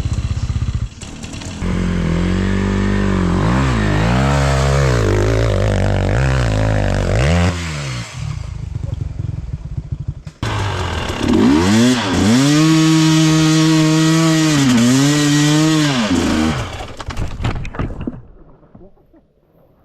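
Dirt bike engine revving up and down under throttle in two long runs with a short break between, then fading away near the end.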